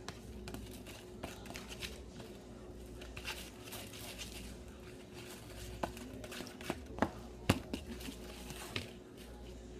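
Homemade soap-and-baking-soda slime being mixed and worked by hand: faint, scattered sticky clicks and crinkles, with a few sharper clicks in the second half.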